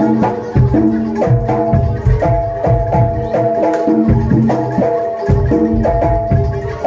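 Live jaranan dor music: a Javanese percussion ensemble playing a quick, repeating pattern of pitched struck notes over steady drum beats.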